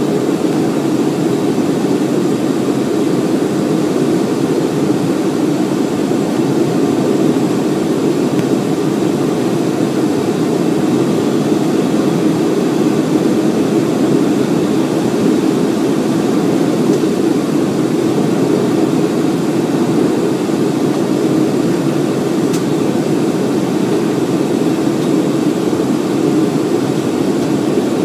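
Steady cabin noise of a Boeing 757-232 in descent, heard from a seat over the wing: its Pratt & Whitney PW2037 turbofans and the airflow past the fuselage make an even, low rush that holds its level throughout.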